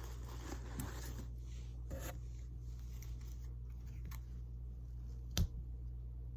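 Rustling and crinkling of packaging and small items being handled, with a few light clicks and one sharp knock about five seconds in, over a steady low hum.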